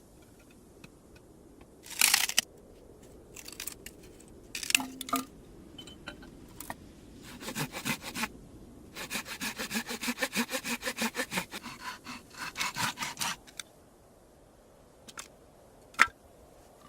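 Hand saw cutting wood: a few short scrapes, then a steady run of quick, even back-and-forth strokes, about four a second, for several seconds. A single sharp click near the end.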